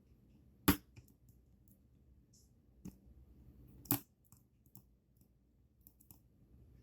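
Small metal clicks and taps from a lock cylinder and hand tools being handled while the lock is taken apart. Three sharper clicks, about a second in, near three seconds and around four seconds, with faint ticks between.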